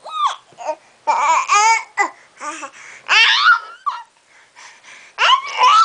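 Infant babbling, with high-pitched vocal bursts that slide up and down in pitch, about four times.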